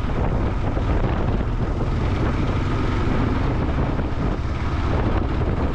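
Motorcycle riding along at a steady, low speed: engine running under a constant rush of wind noise on the bike-mounted microphone.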